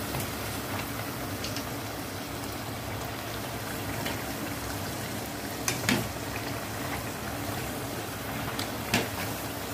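Batter-coated raw banana slices (bajji) sizzling and bubbling steadily in hot oil in a kadai. A wire mesh skimmer turning them gives a few sharp clinks against the pan, around the middle and again near the end.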